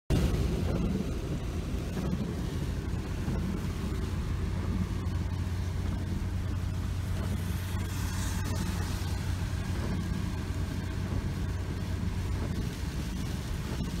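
Steady road noise inside a car driving in heavy rain: a low rumble of engine and tyres under an even hiss of wet tyres and rain, swelling briefly about eight seconds in.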